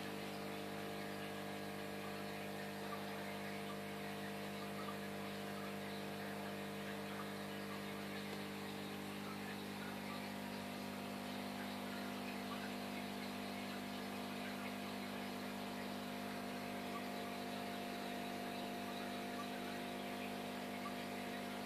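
Steady electric hum of aquarium equipment running, with a faint fizzing hiss of bubbles from the air curtain. The mix of hum tones shifts slightly about nine seconds in.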